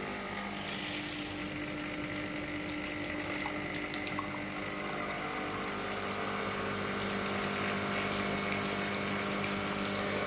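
De'Longhi Icona espresso machine's vibration pump running with a steady hum, pushing hot water through the boiler and outlets into a cup: the priming flush that fills the boiler circuit before first use.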